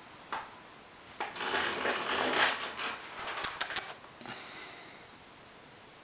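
Rustling handling noise from clothing and a handheld camera being moved about. A quick run of sharp clicks comes about three and a half seconds in, followed by a short hiss.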